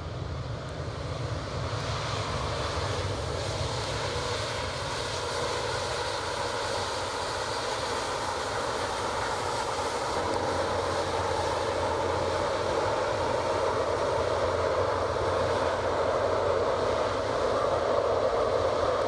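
Airbus A350's twin Rolls-Royce Trent XWB jet engines running as it rolls along the runway, a steady roar with a faint whine, growing louder as it comes closer.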